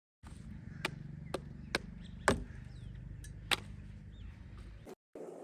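Five sharp knocks at uneven intervals over a low steady hum, the fourth the loudest; the sound cuts off suddenly near the end.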